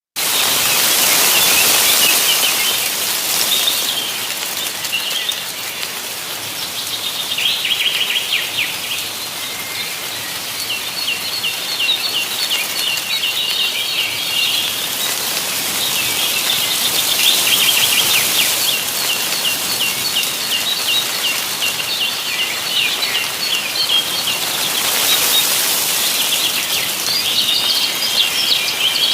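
Small songbirds chirping and singing in rapid, repeated trills over a continuous rustling hiss that swells up several times.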